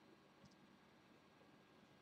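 Near silence: room tone, with one faint double click about half a second in.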